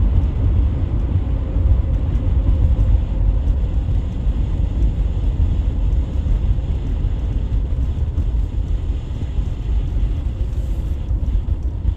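A car driving at road speed, heard from inside the cabin: a steady low rumble of engine and tyre noise.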